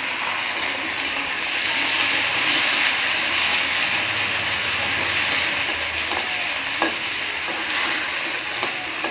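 Onions frying in hot oil in a pan, sizzling steadily while a spatula stirs them, with a few light knocks of the spatula against the pan.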